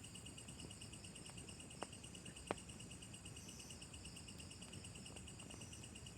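A chorus of insects trilling steadily in a fast, even pulse, high-pitched and faint. Two short sharp clicks break in about two and two and a half seconds in, the second louder.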